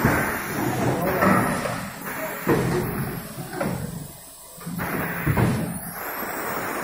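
Several sharp thuds and knocks from a PET blow moulding machine working in a shop, the loudest about one, two and a half, and five and a half seconds in, with people talking in the background.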